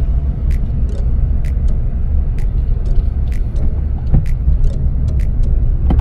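Steady low engine and road rumble heard from inside a moving Suzuki Swift Sport (ZC32S), with scattered sharp ticks a few times a second.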